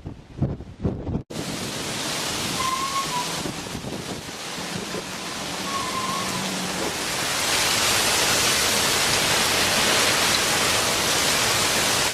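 Heavy rain from a storm pouring down: a dense, steady hiss that grows louder about halfway through and cuts off abruptly at the end. A short burst of wind noise comes before it, just before a cut.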